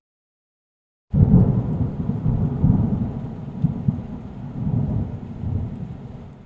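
Thunder rumble, likely a dramatic sound effect laid over the teaser: it starts suddenly about a second in, rolls on deep and loud, then slowly dies away.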